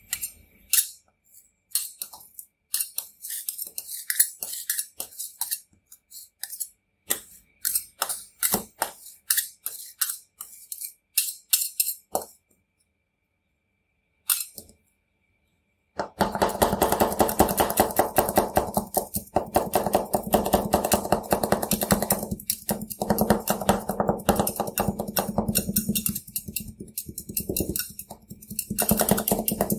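Two metal spatulas scraping and clicking on the steel pan of a rolled ice cream machine, working a cream base with crushed Oreo cookies: scattered scrapes and taps at first, then, after a short pause about halfway, fast continuous chopping.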